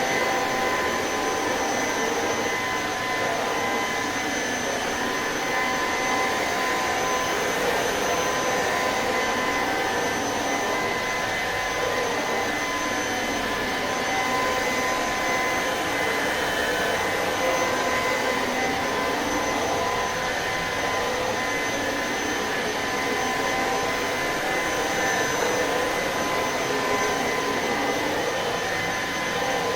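Electrolux Pure F9 cordless stick vacuum running steadily over a shag rug. It makes an even motor whine with a high tone above the airflow noise.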